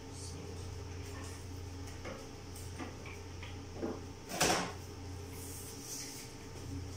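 A steady low hum with a few light knocks, and one louder short clatter about four and a half seconds in, like equipment being handled.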